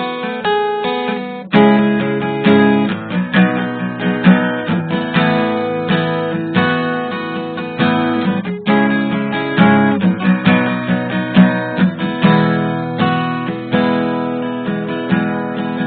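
Music: acoustic guitar strummed and plucked, one chord after another at an even pace.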